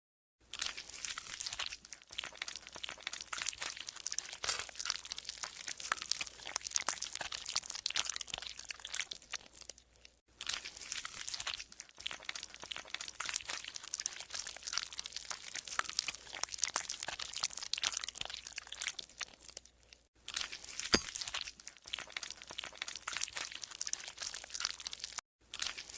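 Golden slime being squeezed and worked by hand, making dense runs of crackling, squelching clicks. The runs break off for a few short pauses, and there is one sharper snap in the later part.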